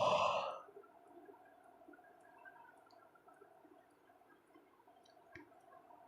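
A woman's short, loud breathy exhale at the start, the tail of a yawn. After it, faint steady room hum with small mouth clicks, and one sharp click near the end.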